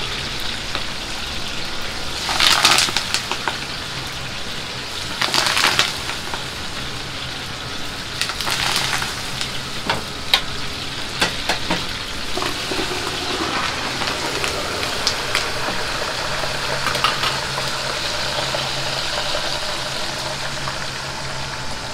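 Chicken pieces deep-frying in a wok of hot oil, a steady sizzle over a low hum. Louder bursts of crackling come about 2.5 and 5.5 seconds in, with several sharp clicks of metal utensils later on.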